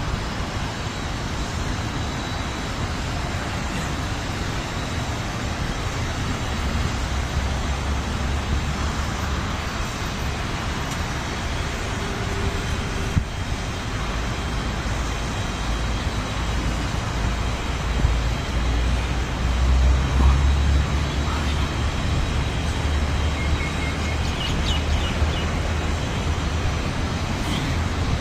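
Steady outdoor background noise: a low rumble that swells and falls, under an even hiss.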